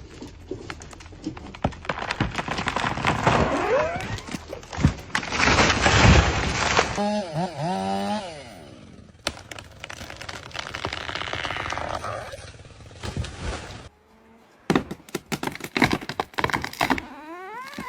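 Chainsaw cutting and the crack and break of timber as a tree gives way, in several short abrupt segments.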